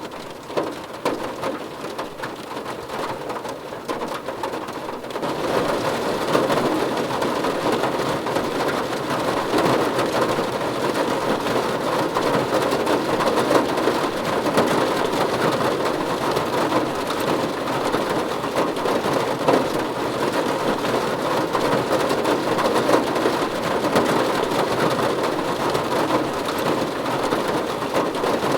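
Rain falling on a car's roof and windows, heard from inside the car: a dense, steady patter of drops that gets heavier about five seconds in.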